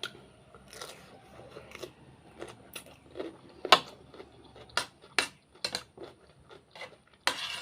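Close-miked eating: a person chewing with wet mouth smacks and sharp clicks at an irregular pace, and a longer burst of noise near the end.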